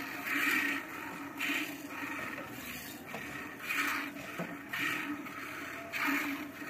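Milk squirting in streams from a cow's teats into a half-filled steel pot as it is milked by hand, a soft hissing spurt about once a second.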